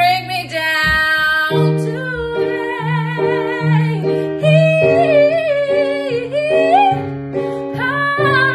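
Woman singing with vibrato while accompanying herself on an electronic keyboard playing repeated chords. Near the end her voice climbs to a higher held note.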